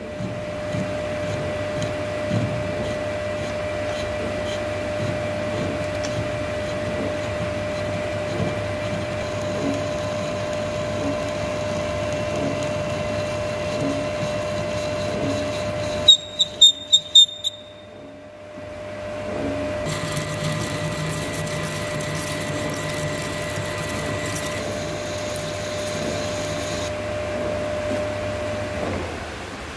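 Centre lathe turning down a MIG weld bead on a chrome-bar hydraulic cylinder rod: the tool cutting steadily, with a steady whine over the machining noise. About halfway through comes a quick run of about six sharp clicks and a short lull, then the cutting sound returns.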